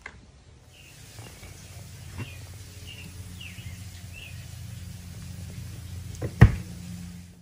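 A cooler lid shuts with a single loud thud about six seconds in, over a steady low background hum with faint birds chirping.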